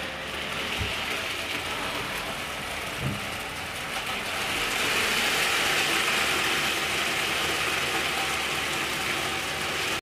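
Roomba i8+ robot vacuum running as it picks up loose Rice Krispies cereal from a hard floor. The steady noise swells a little about four seconds in.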